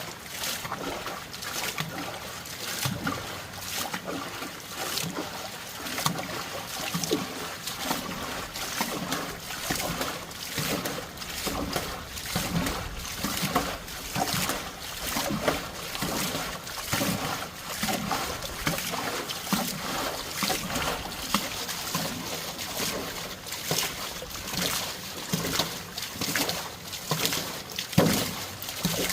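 Water splashing and trickling, with many irregular splashes and sloshes.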